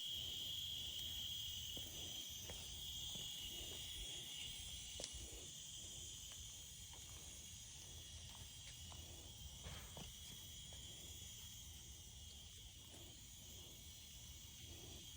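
Faint outdoor insect chorus, crickets or similar, making a steady high-pitched trill that eases slightly over the first few seconds, with a few faint ticks.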